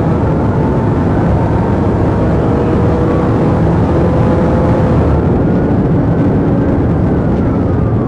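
Police car's engine and tyre noise heard from inside the cabin while driving fast, a steady loud drone with a faint tone slowly rising and falling over it.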